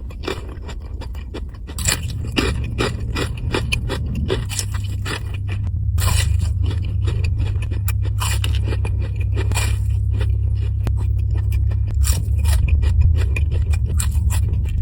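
Close-miked crunchy chewing of fried fish and chips: rhythmic crackly bites and chews, about two to three a second at first. A steady low rumble sits underneath from about two seconds in, louder from about four seconds.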